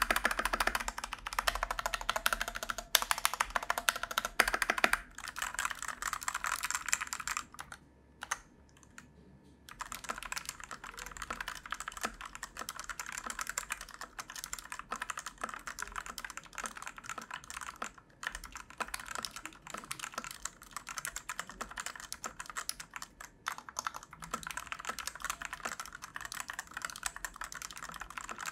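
Typing test on a Fantech Maxfit61 Frost Wireless mechanical keyboard with Otemu Red linear switches: a fast, steady run of keystroke clacks, with a pause of about two seconds about a third of the way in. Otemu Red switches are, in the reviewer's words, very prone to spring ping.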